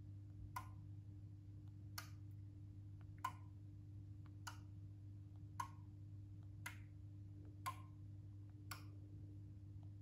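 Relays inside a Meross smart power strip clicking as its outlets are switched on and off one after another from a phone app: eight sharp clicks about a second apart, over a faint steady hum.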